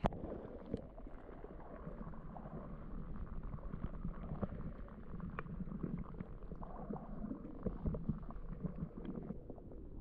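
Creek water heard from under the surface: a muffled low rumble of moving water, with scattered faint clicks and knocks.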